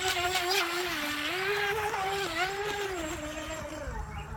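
Atomik Barbwire RC racing boat's brushless motor whining. The pitch jumps up right at the start as the boat runs close by with a hiss of spray, wavers with the throttle, then drops near the end as the boat pulls away.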